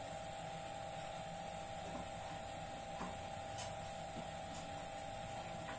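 A steady hum holding one pitch throughout, with a few faint soft clicks scattered across it.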